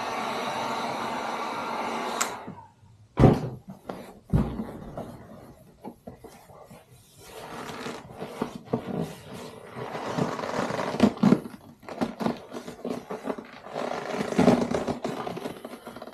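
Heat gun blowing steadily, switched off about two seconds in. Two loud knocks follow, then vinyl upholstery rubbing and scraping as it is stretched and handled over the seat base.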